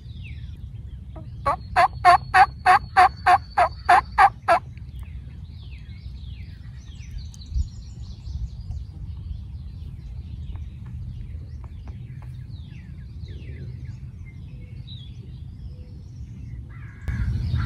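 Wild turkey calling: a loud run of about ten evenly spaced notes, some three a second, over about three seconds, followed by faint small-bird chirps. Near the end a burst of rustling noise starts.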